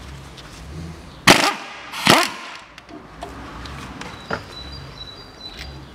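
Impact wrench hammering on the crankshaft pulley bolt in two short bursts, a little under a second apart, breaking the bolt loose. A lighter knock follows a couple of seconds later.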